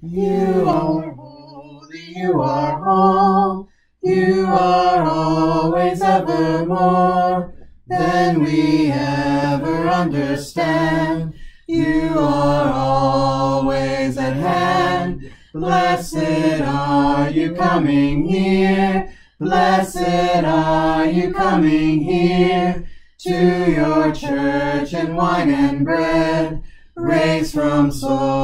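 A small group of voices singing a hymn unaccompanied, in phrases of about four seconds with a short breath between each line.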